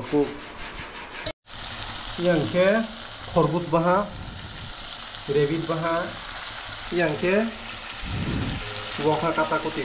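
Chicken pieces sizzling as they fry in a karahi on a gas stove, stirred with a metal spatula. A short pitched squeak that rises in pitch comes back about every second or so over the steady sizzle.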